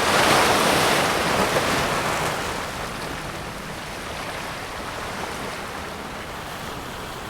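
Small wave breaking on the beach of a calm sea at high tide: the wash swells to its loudest in the first two seconds, then fades away steadily.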